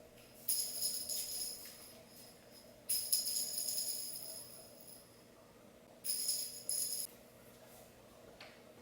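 Metallic jingling in four short shakes, each ringing on high and fading over a second or two.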